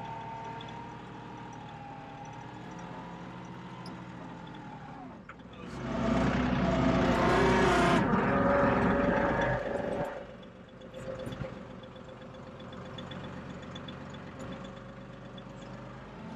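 John Deere 2038R compact tractor's three-cylinder diesel engine running steadily. It gets much louder for about four seconds in the middle, then drops back to its earlier level.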